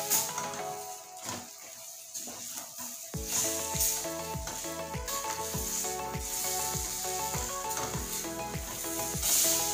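Chicken pieces sizzling in sauce in a stainless steel pan on a gas burner, stirred with a wooden spatula, the hiss swelling in bursts as they are turned. Background music plays throughout, with a steady bass beat that comes in about three seconds in.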